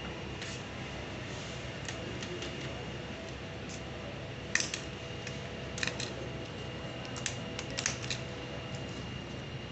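Scattered light clicks and taps of small hard parts being handled during TV repair work, a sharper knock about halfway through and a quick cluster of clicks near the end, over a steady faint hum.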